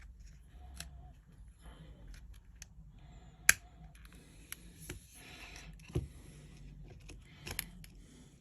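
Small clicks, taps and light scrapes of hand tools and parts being handled on an opened iPhone during a screen replacement, with one sharp click about three and a half seconds in and a softer knock near six seconds.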